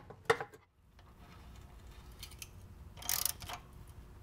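Quiet metallic clicks of hand tools on the Corvair's sheet-metal engine shroud, as it is fitted back in place and its bolts are tightened with a ratchet on a long socket extension, with a short metallic rattle about three seconds in.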